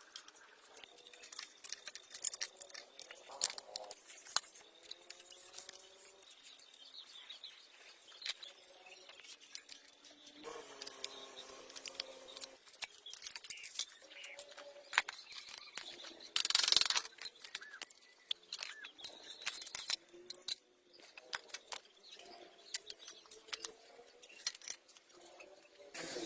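Small metal parts and hand tools clicking and tapping in a workshop, with faint voices in the background and one short loud hiss about two-thirds of the way through.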